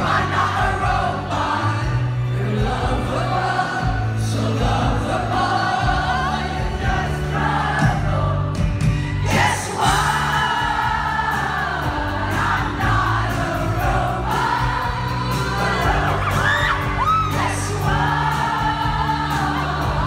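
Live pop band with a female lead singer, recorded on a phone from within the audience: sung vocal over a steady bass line and drums, with crowd noise mixed in.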